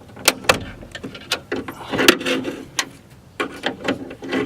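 Irregular sharp clicks and knocks from hands and tools working a plastic clip onto the window regulator track inside a BMW E36 M3 door.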